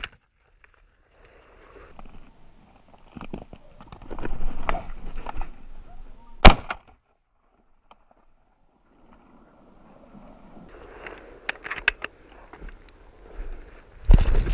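Shotgun shots: a sharp report right at the start and a louder one about six and a half seconds in, with rustling through dry stubble between them.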